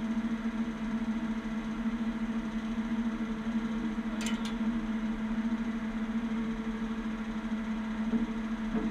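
Heavy truck's diesel engine idling steadily, a constant hum with no change in speed. Two short sharp clicks come about four seconds in.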